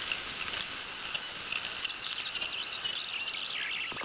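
Electric hand mixer running, its beaters churning thick whipped cream in a stainless steel pot: a steady high-pitched whir with a wavering, chattering edge. The cream is being beaten past stiff peaks until it splits into butter and buttermilk.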